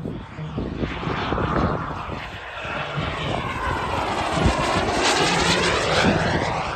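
Turbine engine of a quarter-scale RC F-16 model jet passing close overhead: a steady jet whine that builds to its loudest about five seconds in, with a sweeping pitch as it goes by.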